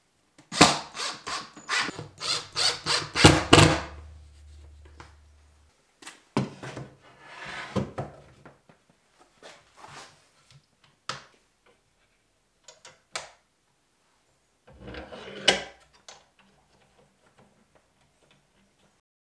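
Cordless drill driving a screw into plywood, a rapid run of short strokes lasting about three seconds. Then scattered knocks, clicks and rubbing of wood and metal parts being handled and clamped, with a louder clatter about fifteen seconds in.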